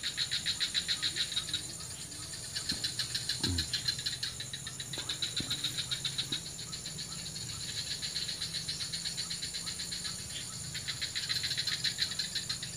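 Swamp insects calling: a steady high-pitched buzz under a rapid pulsing trill that comes in phrases of a second or two with short gaps. A soft low thump about three and a half seconds in.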